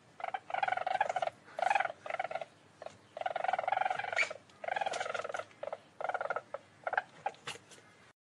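Least weasel (Mustela nivalis) giving rapid trilling calls in a string of short bursts with brief gaps between them. The calls cut off suddenly near the end.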